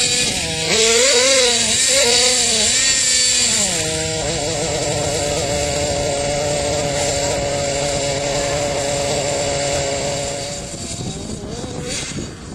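Radio-controlled monster truck's small combustion engine revving, its pitch wavering up and down for the first few seconds, then held at a steady high rev while the truck holds a wheelie on its rear wheels. It fades about ten seconds in.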